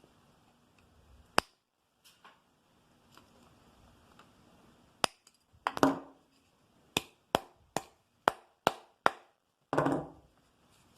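Sharp clicks and knocks of a homemade wire hose clamp tool being worked to tighten a wire loop, several in quick succession around the middle, with two short scraping noises, one midway and one near the end.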